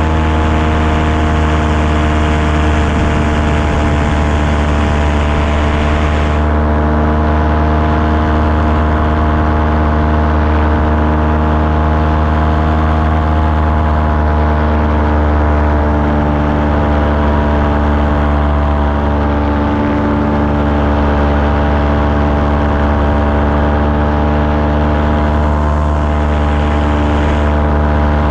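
Small aircraft engine running steadily in flight, its pitch holding nearly level, heard from on board with a haze of wind and propeller noise over it.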